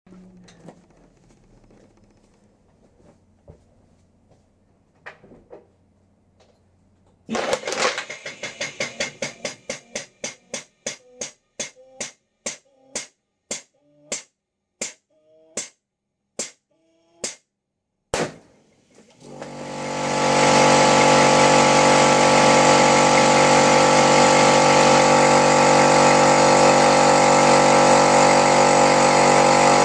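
Air-pressure intensifier cycling: a fast run of sharp puffs that slows steadily as a 2-litre plastic Coke bottle is pumped toward 12 bar, then a single sharp bang about 18 seconds in as the bottle bursts. After it, a loud steady motor drone with a constant hum starts up and keeps going.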